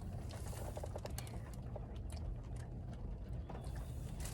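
Light, irregular clicks and taps of food containers and utensils being handled during a meal, over a low steady hum.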